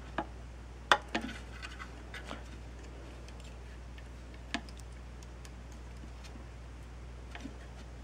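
Small clicks and ticks of crimped quick-disconnect connectors being pushed onto a subwoofer driver's terminals and handled: a few sharp clicks in the first second and a half, another about four and a half seconds in, over a steady low hum.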